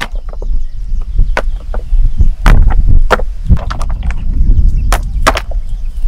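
Irregular sharp knocks and taps, about a dozen, the loudest a little past halfway, over a steady low rumble: hand-tool work such as chopping or pounding.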